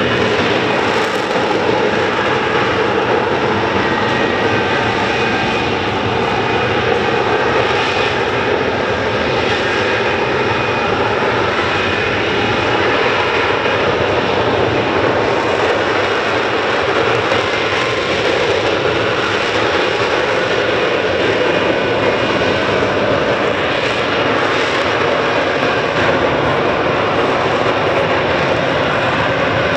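Lockheed Martin F-35B Lightning II hovering in its vertical-landing mode, its F135 jet engine and shaft-driven lift fan running with a steady, loud roar of rushing exhaust and faint thin whining tones over it.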